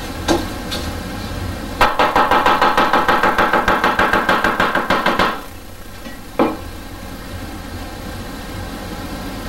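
Chinese cleaver chopping fast on a wooden cutting board: a quick, even run of strokes starting about two seconds in and lasting some three and a half seconds, with a single knock of the blade on the board before it and another after.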